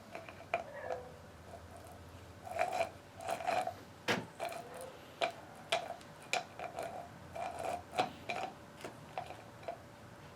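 Metal parts of a Warn VR8000 winch's gear train clinking and tapping together as they are handled: a string of irregular clicks, each with a short metallic ring.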